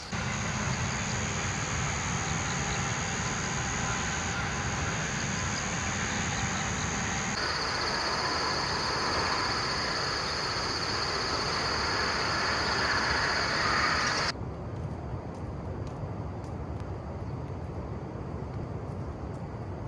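Steady outdoor ambient noise with a steady high-pitched whine. Low rumble, as of wind on the microphone, is strongest for the first seven seconds or so; the sound changes abruptly twice and is quieter for the last several seconds.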